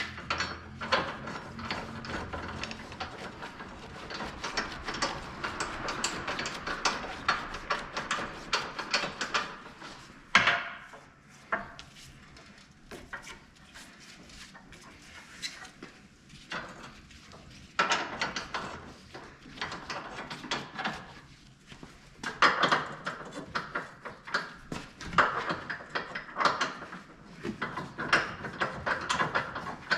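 Hand tools at work on a car's underside: repeated clicks, knocks and scraping. There is a sharp knock about ten seconds in and a quieter stretch in the middle.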